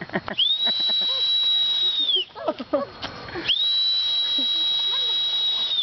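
Toy bubble whistle blown in two long, steady, high-pitched blasts, each sliding up at the start and drooping at the end. Voices are heard in the gap between the blasts.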